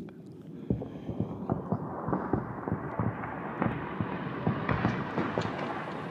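Electronic accompaniment for a reading: a low, rumbling texture full of irregular knocks and crackles that grows steadily brighter and hissier.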